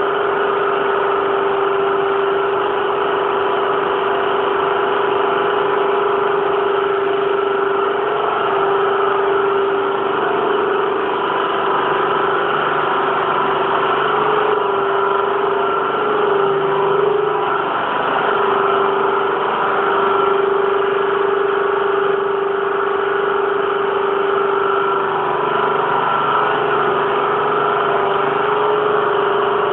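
Large electric machinery in a colliery winding engine house running with a steady loud hum and a strong mid-pitched whine, its pitch wavering slightly now and then.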